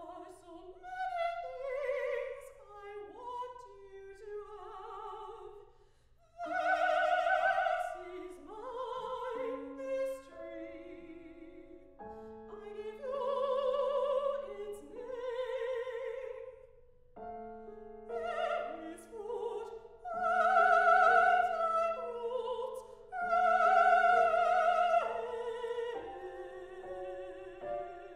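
Classically trained solo voice singing an art song with vibrato, accompanied on grand piano. The voice pauses briefly about six seconds in and comes back loud, and later phrases rise to long, loud held notes.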